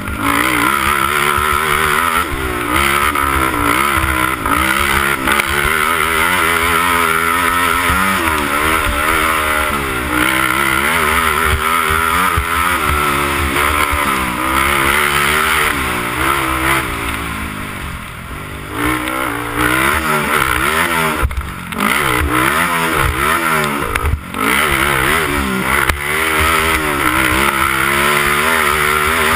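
Honda TRX300EX sport quad's single-cylinder four-stroke engine being ridden hard, its pitch rising and falling again and again as the throttle is worked. The engine drops off briefly a few times past the middle, when the throttle is let off.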